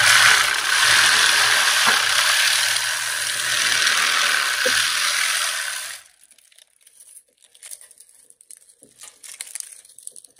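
Reciprocating saw cutting through the varnished copper windings of an electric motor stator held in a vise, a steady buzzing rasp that stops suddenly about six seconds in. Faint clicks and rustles of the cut wire being handled follow.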